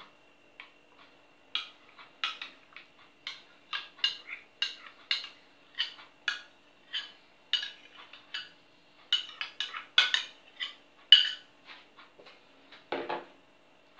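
Metal spoon clinking and scraping against a glass bowl while sour cream is scooped out of it, in a run of short taps about two a second.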